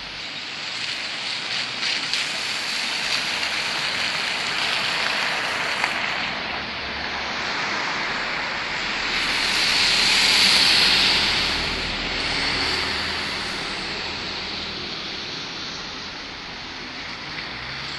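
Street traffic on a wet road: tyres hissing on wet asphalt, swelling to a peak about ten seconds in as a car passes close, then fading.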